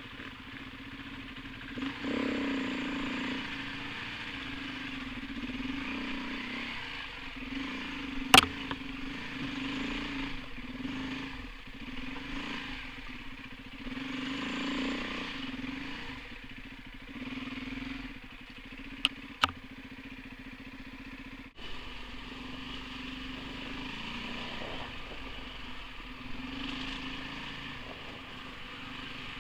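Off-road motorcycle engine running at varying throttle, swelling and easing as it rides along, with a sharp knock about eight seconds in and two more a little after halfway.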